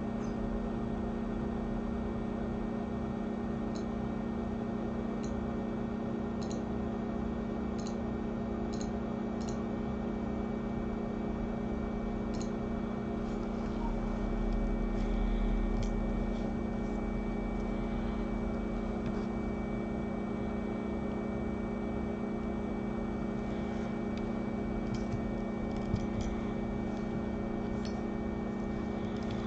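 Steady electrical hum of microsoldering bench equipment, with a few faint light clicks from tools being handled.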